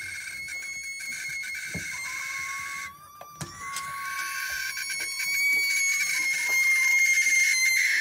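Barn owls screeching in two long, drawn-out calls of a few seconds each, with a short break about three seconds in; the second call is louder.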